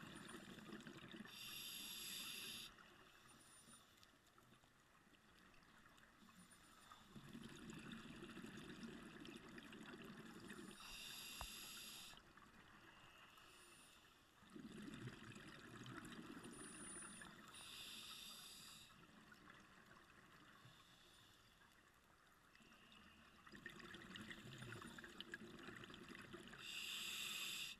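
Scuba diver breathing through a regulator: a short hiss of inhaled air about every eight seconds, alternating with several seconds of low bubbling as each breath is exhaled.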